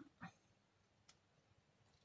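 Near silence: room tone, with two faint short sounds in the first quarter second and a faint tick about a second in.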